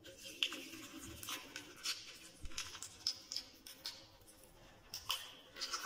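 Water poured from a steel cup splashing into a plastic juicer base, an uneven patter of splashes and drips.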